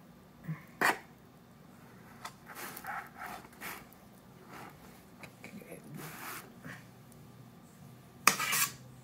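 Small spatula spreading and scraping buttercream icing over a cake, with scattered light scrapes and a sharp click of the blade or plate about a second in. A louder short scrape comes near the end.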